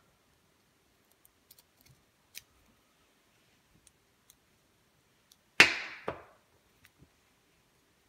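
Faint scattered clicks of a rake pick and tension wrench working in a cheap padlock, then a loud sharp knock about five and a half seconds in that dies away over about half a second, with a second, smaller knock just after.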